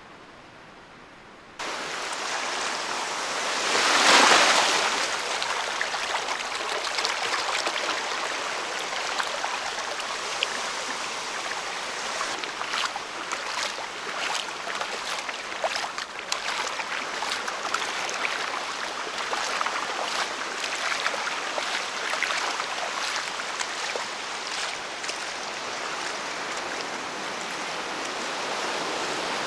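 Shallow Atlantic surf washing over sand and around bare feet wading in it: a steady rush of water with frequent small splashes and crackles of foam. The sound starts abruptly about a second and a half in, and a wave surges loudest about four seconds in.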